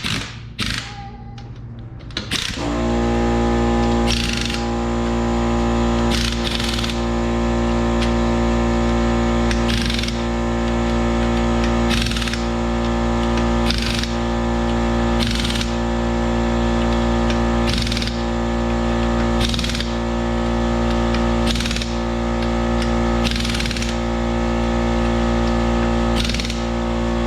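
Background music: a held synth chord with a short percussive hit about every two seconds, starting suddenly a couple of seconds in.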